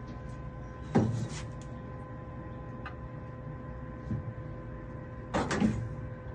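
Clunks and knocks from a washing machine being taken apart to remove its drum: one loud clunk about a second in, a small knock later, and a short cluster of knocks near the end, over a steady low hum.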